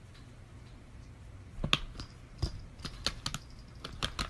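Laptop keyboard typing: irregular keystroke clicks, a few a second, starting about a second and a half in.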